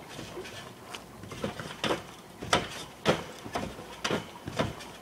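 Trampoline bouncing: the mat and its steel springs squeak and thump with each bounce, about twice a second, the strokes getting louder as the jumper goes higher.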